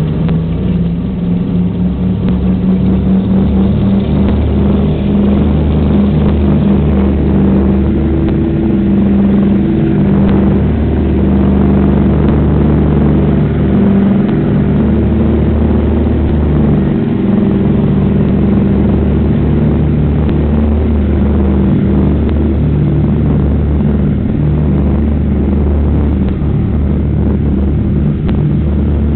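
Douglas DC-3's twin radial piston engines running at high power, a loud, steady, deep drone.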